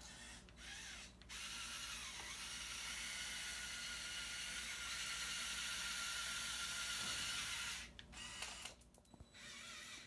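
Small electric motors and plastic gears of a remote-controlled Lego Technic tracked skid steer whirring as it drives and turns. It runs steadily for several seconds, then stops and starts in short spurts near the end.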